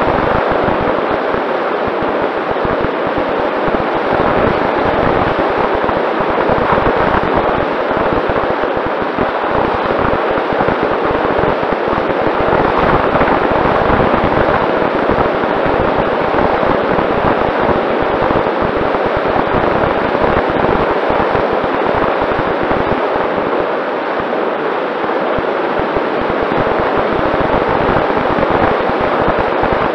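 Rushing and buffeting airflow on the microphone of a camera riding on a Mini Talon RC plane in flight, crackling steadily at a high level. Under it runs a faint steady hum from the plane's Sunnysky 2212 electric motor and propeller.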